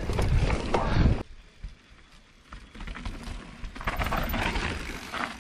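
Mountain bike descending a rocky trail: tyre and wind noise, which drops away abruptly about a second in. The bike's knocks and rattles over rock and dirt then build again as it comes closer.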